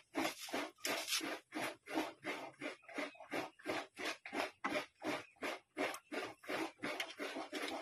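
Steady rhythmic rasping strokes, about four a second, as of something being scraped or grated.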